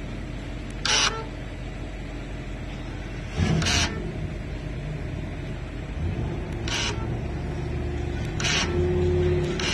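Engine running steadily with a low hum, broken by four short hissing bursts and growing louder near the end.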